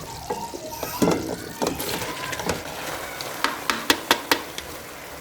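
Parboiled rice being tipped into sugar syrup in a pot and stirred in, with a spoon clicking and knocking against the pot several times, a quick run of sharp clicks near the end.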